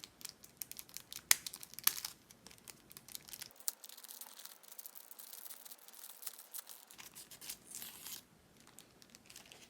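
Packaging being crinkled and torn open to free a new SSD, with faint scattered crackles and clicks and a short rustle a little before the end.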